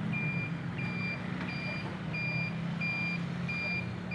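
A vehicle's reversing alarm beeping steadily, one short high beep about every three-quarters of a second, over the low hum of a vehicle engine running.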